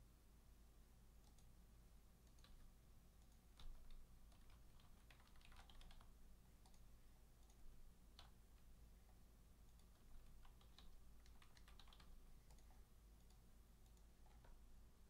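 Faint typing on a computer keyboard: irregular clicks in short, scattered runs, over a low steady hum.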